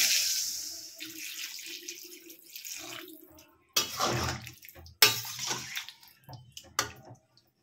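Water poured into a hot stainless-steel wok of fried vegetables, rushing loudly and dying away about a second in. A metal spatula then stirs and scrapes against the pan, with two loud scrapes about four and five seconds in and a few lighter knocks after.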